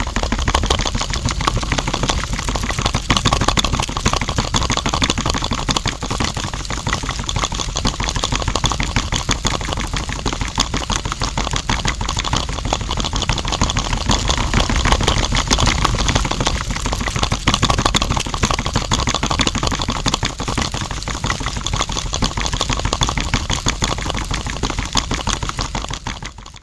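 Small electric motor of a miniature DIY model machine running steadily with a fast rattling buzz.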